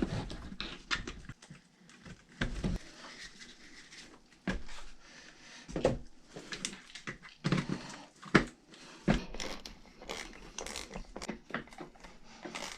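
Irregular clicks, taps and small knocks of metal hardware and plastic parts being handled and fitted while an RC truck is bolted back together, with a sharper knock right at the start and another about eight seconds in.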